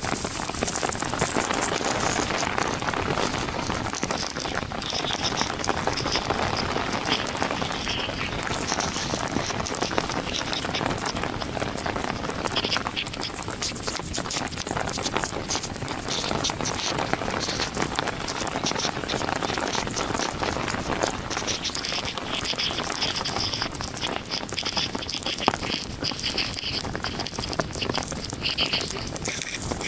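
Heavy rain falling steadily, a dense patter of drops striking a surface.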